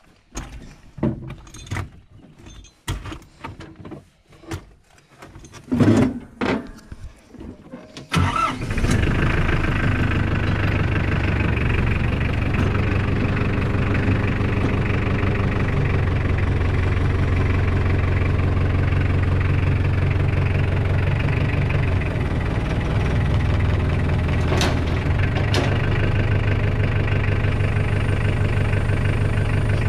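Scattered knocks and clicks, then a tractor engine starts about eight seconds in and settles into a steady idle.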